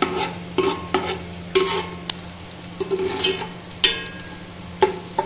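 Slotted metal spoon stirring sliced onions frying in oil in an aluminium pot: about eight irregular sharp clinks of metal on the pot, each ringing briefly, over the oil sizzling.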